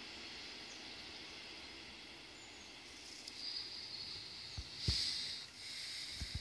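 Steady outdoor background hiss. A higher hiss swells up about halfway through, and a few short low thumps come near the end.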